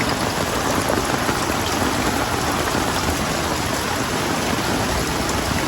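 Heavy rain pouring down steadily in a thunderstorm, an even rushing hiss.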